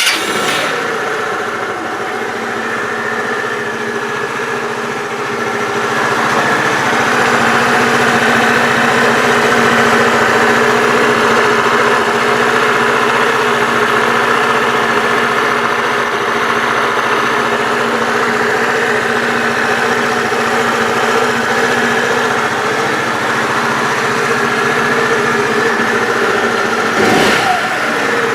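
Bashan BWS 2 scooter engine catching and running steadily at idle, its speed coming up slightly about five seconds in, with a brief blip near the end. It runs without a knock, now that the worn big-end (lower connecting-rod) bearing has been cured with a new crankshaft.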